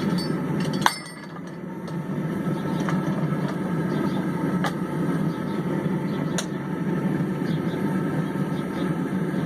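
Steady low rushing roar with a few light metallic clinks, the sharpest about a second in and fainter ones spaced over the following seconds.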